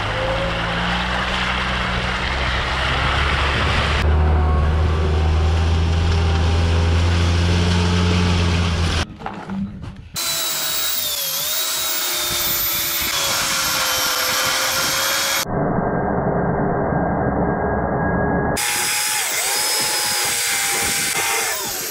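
For the first nine seconds or so, a UAZ Bukhanka van's engine drones low and steady as it drives on a muddy, rutted road. Then an angle grinder whines as it cuts a steel leaf-spring leaf, its pitch dipping briefly now and then as it bites under load.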